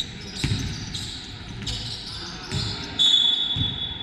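Basketball bouncing on a gym's hardwood floor a few times, with short sneaker squeaks, the knocks echoing in the hall. About three seconds in, a referee's whistle blows one steady high blast for about a second, the loudest sound here.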